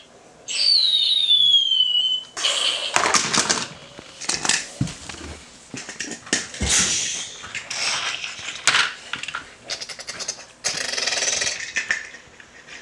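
Mock battle sound effects for toy army play: a high whistle falling steadily in pitch near the start, then a run of hissy, sputtering bursts of noise.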